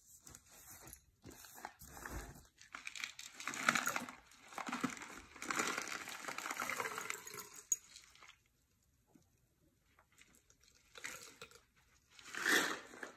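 Irregular rustling and crinkling noise in uneven bursts, then a few seconds of near quiet, then one brief loud rustle near the end.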